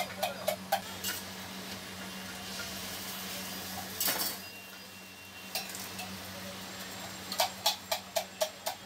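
Metal spatula clinking on metal at a flat iron griddle (tawa) where parathas are cooking: quick runs of about four clinks a second near the start and again near the end. A brief hiss about four seconds in, over a steady low hum.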